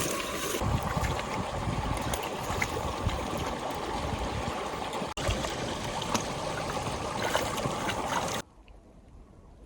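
A small stream running and trickling, a steady rush of water with little splashes, cutting off abruptly about eight and a half seconds in.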